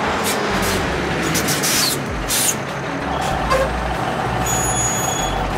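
Sound effect of a heavy truck driving: a low engine rumble under a noisy hiss, with several sharp bursts of air hiss in the first half like air brakes.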